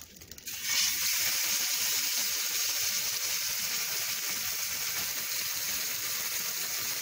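Sauce-dipped corn tortilla dropped into hot oil in a frying pan: a loud frying sizzle starts suddenly about half a second in and then holds steady. The sauce is a guajillo chile sauce.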